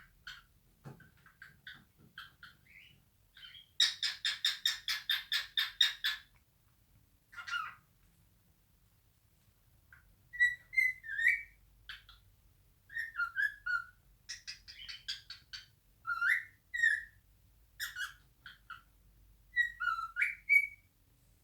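Male cockatiel singing its natural song: scattered short chirps, then a fast run of about ten repeated notes a few seconds in, followed by a series of short whistled phrases with rising and falling slides.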